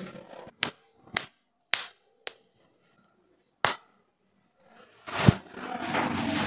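Joint cracks during a chiropractic adjustment: five sharp clicks spread over the first four seconds, then a louder thud about five seconds in, followed by shuffling noise.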